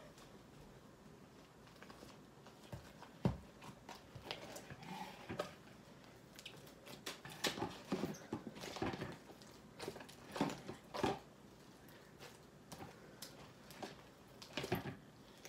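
Slime with jelly cubes mixed in being squished and pressed by hand: irregular sticky clicks and wet squelches, busiest in the middle.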